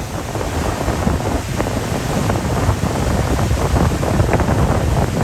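Wind buffeting the microphone on a pontoon boat underway, a loud, uneven rumble with gusty spikes.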